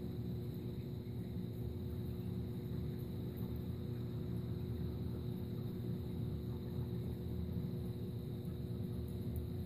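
Steady hum and water rush of saltwater aquarium pumps running, with a few steady low tones and a faint high whine.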